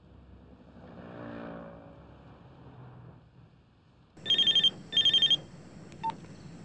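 A telephone ringing: two short electronic trilling rings in quick succession, starting about four seconds in. Before them, a low hum swells and fades.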